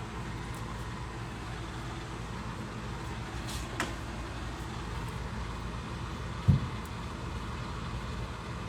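A steady low engine hum, like a vehicle idling, with a faint click about four seconds in and a dull thump a little after six and a half seconds.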